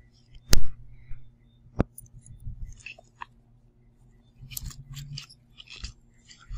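Handling sounds of a leather Coach Willow bucket bag and its strap's metal buckle being moved about: a sharp knock about half a second in and another near two seconds, then scattered clicks and rustling.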